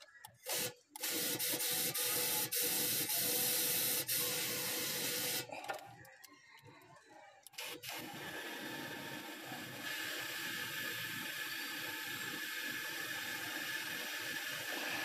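Compressed-air blow gun hissing: a couple of short bursts, a blast of about four seconds, a pause, then one long steady blast. It is blowing the leftover oil out of the engine after the old oil has been drained, during an oil change.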